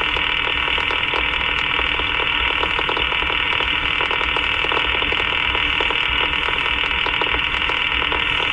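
Steady hiss of static from an open railroad radio channel with faint crackle, its sound cut off above the voice range, over a low rumble.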